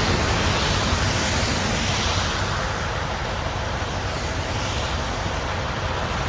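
Steady road noise of a semi truck driving: a low engine drone mixed with tire and wind noise.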